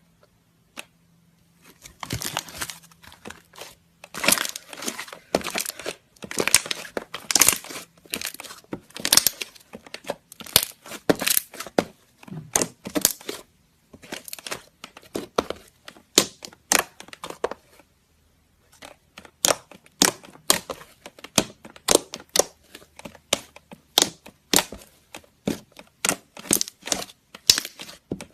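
Slime being squeezed and worked by hand, giving off rapid crackling and popping in bursts, with a short pause about two-thirds of the way through.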